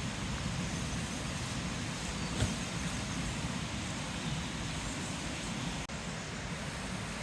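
Wooden Swedish torch burning, the fire drawing with a steady low rumble and one sharp crackle about two and a half seconds in.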